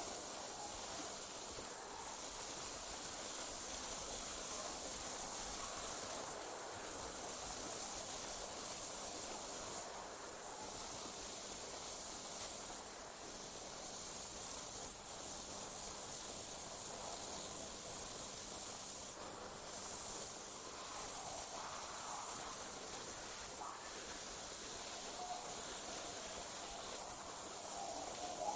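Night insects trilling in a steady, very high-pitched chorus that pauses briefly every few seconds before resuming.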